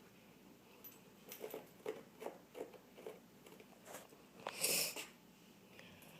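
A dog making short breathy and clicky noises close to the microphone, a quick string of them, with one louder puff of breath about four and a half seconds in.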